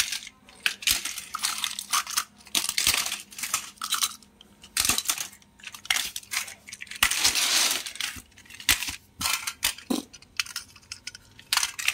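Small toy cars and trucks being dropped one after another into a plastic basket, clattering and clinking onto the pile of toys already in it, with a longer rattling shuffle about seven seconds in.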